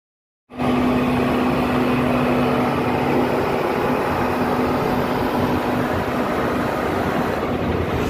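Diesel engine of heavy road-construction machinery running steadily, with a strong steady hum. It cuts in abruptly about half a second in.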